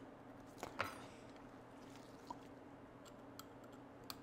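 Quiet workbench: a faint steady hum with a few light clicks and a short scrape about a second in.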